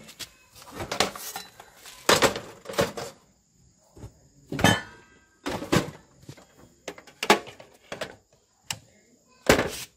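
Metal-cased electronics units (scrap DVD players and receivers) clanking and knocking as they are handled and set down: about nine separate knocks, roughly a second apart.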